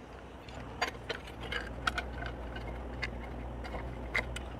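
A handful of small, scattered metal clicks and clinks as a VFD speed controller's mounting slots are set onto bracket bolts and washers by hand, over a steady low hum.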